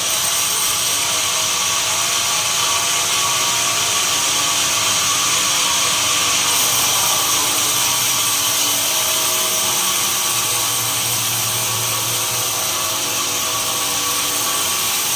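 Sawmill machinery running steadily: a loud, continuous mechanical noise with several steady high tones and no pauses.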